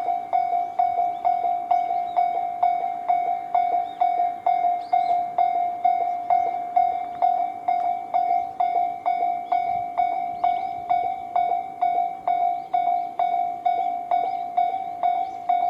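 Japanese railway level-crossing alarm: an electronic crossing bell of the Tobu 'sound C' type, ringing continuously at about two and a half strikes a second, each strike a clear tone that dies away. It is the warning that a train is approaching and the crossing is closed.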